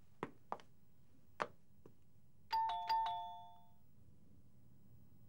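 Doorbell chime ringing a two-tone ding-dong, struck twice in quick succession about halfway through and fading within about a second. Before it, a few light footsteps on a hard floor.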